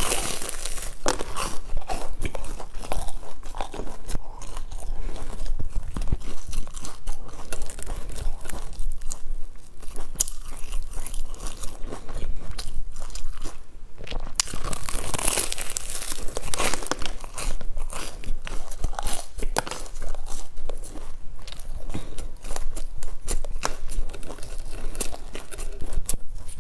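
Close-miked biting and chewing of a soft filled bun with a crumbly crust topping: crisp crumb crunches and wet chewing sounds, irregular and continuous.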